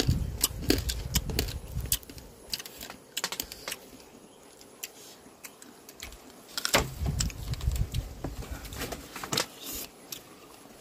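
A metal spoon clicking and scraping on a banana leaf as small round fruits in chili paste are stirred and scooped. Close-up chewing comes in about two-thirds of the way through, with a denser run of clicks and low rustling.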